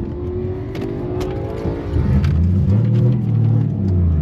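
A car engine running at low revs, with a faint whine rising slowly over the first two seconds. About two seconds in, a louder, deeper engine drone comes in.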